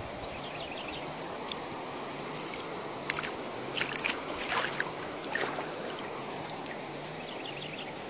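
Shallow river water running steadily over rocks, with a few splashing footsteps through the water around the middle.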